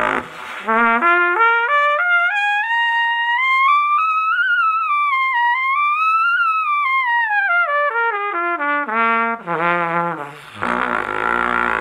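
Trumpet played loudly in a slurred run that climbs note by note from the low register up to a high G above high C, dips slightly, and touches the top again. The run then steps back down. A loud, buzzy low note sounds at the start and again near the end.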